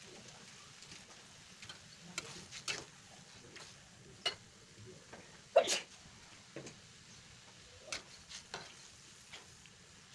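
Metal spatula scraping and knocking against a metal wok as broccoli and tempeh in a little broth are stirred, in irregular strokes with the loudest knock about halfway through, over a faint sizzle.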